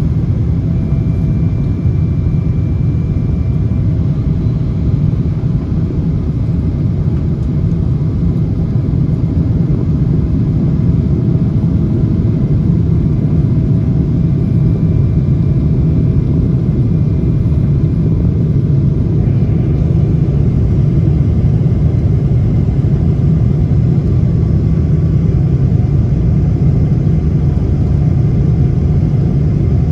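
Steady cabin noise inside a Boeing 777-200ER airliner: a loud, even rumble of engines and airflow, with a faint steady engine whine above it.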